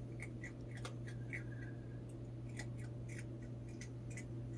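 Opossum chewing food: faint, irregular wet clicks and smacks, over a steady low hum.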